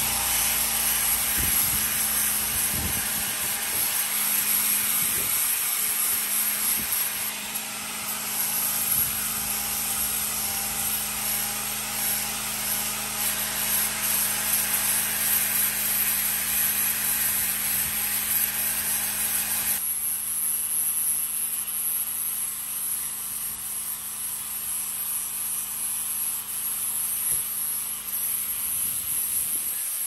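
Corded electric angle grinder with a 120-grit flap disc running steadily while grinding old paint off a ship's metal air horn: a constant motor hum under the hiss of the disc on the paint and metal. The grinding hiss thins abruptly about twenty seconds in.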